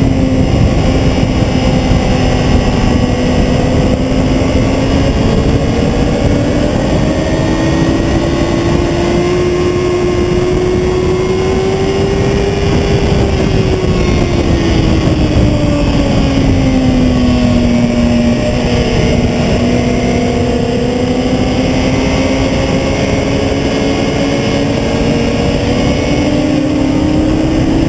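Sport motorcycle riding at speed: its engine note rises gently, falls about halfway through and then holds steady, under heavy wind rush on a camera mounted low on the fairing.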